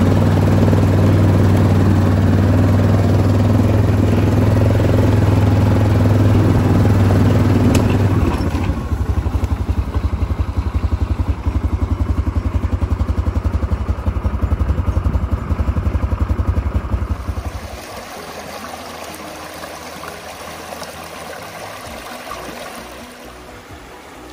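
ATV engine running while being ridden: a steady, loud hum for about eight seconds, then easing to a slower, evenly pulsing putter. The engine sound drops away sharply about seventeen seconds in, leaving a quieter background.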